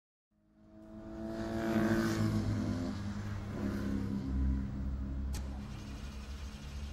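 A motor vehicle engine running, swelling up over the first two seconds, with a single sharp click about five seconds in.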